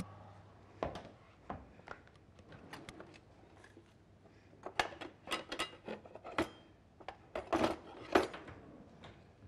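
Kitchen clatter of a baking tray and dishes being handled: a low hum stops just under a second in, followed by scattered knocks, clicks and clinks that grow busier in the second half, the loudest knock about eight seconds in.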